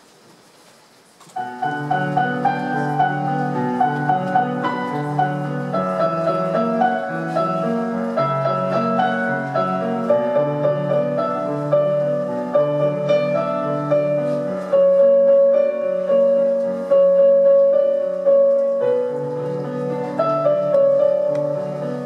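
Instrumental music begins abruptly about a second in, after a quiet stretch, and plays on in sustained, changing notes.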